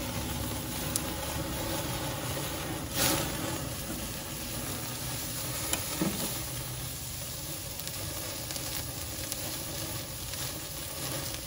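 Sous-vide ribeye steaks searing on a grate over open charcoal flames, sizzling steadily. A few short sharp knocks cut through, the loudest about three seconds in.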